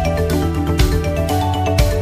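Background music: an electronic stock-music track with a strong beat about once a second under a bright melody of stepping notes.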